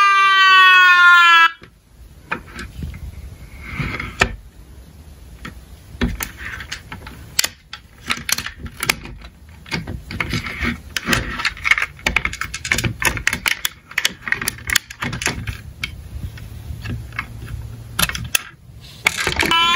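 A toy emergency vehicle's electronic siren wails with a falling pitch, then cuts off abruptly about a second and a half in. Small die-cast toy cars follow with a long run of irregular light clicks and clattering, which is quieter than the siren. The siren starts up again with a rising pitch just before the end.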